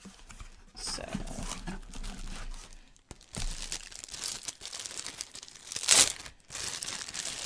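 Plastic wrapping crinkling and tearing as it is pulled off a glass storage jar, with a loud sharp rip about six seconds in.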